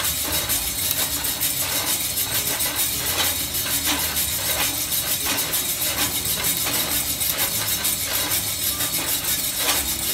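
Coffee beans tumbling inside a stainless-steel drum roaster as the drum is turned by hand: a steady rustling hiss dense with small clicks.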